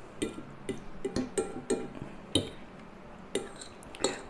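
Metal fork clinking and scraping against a ceramic pasta bowl: about a dozen light, irregular clinks.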